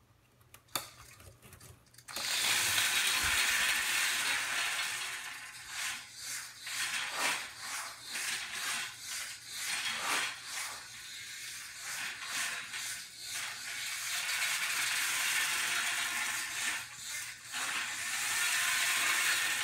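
A click as the robot is switched on, then from about two seconds in the Parallax Stingray robot's drive gear motors whir steadily, the sound dipping and swelling repeatedly through the middle stretch as it drives about.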